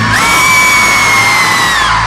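A concert crowd screaming and cheering over live pop-rock music, with one shrill scream held close by for nearly two seconds, gliding up at the start and falling away near the end.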